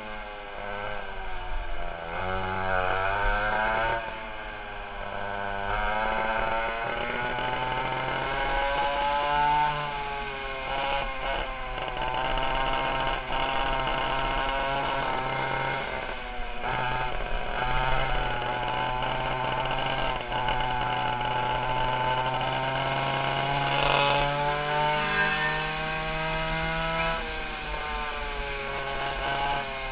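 The twin 820 chainsaw engines of a 1960 Fox go-kart running hard. Their two-stroke note rises and falls again and again as the throttle is worked, easing off briefly a few times before climbing again.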